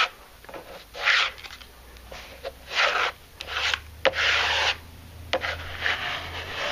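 Notched trowel scraping tile adhesive across a plywood board in several short strokes, each a rasping sweep lasting about half a second.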